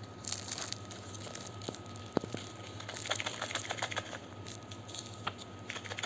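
Cardboard and plastic packaging of a camera box being handled as accessories are taken out: scattered sharp clicks and crinkles, one louder click a little after two seconds and a quick run of small clicks about three seconds in.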